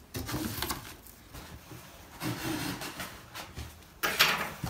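Cardboard box and plastic wrap rustling and scraping as a boxed microwave oven is worked loose, with a louder scrape near the end.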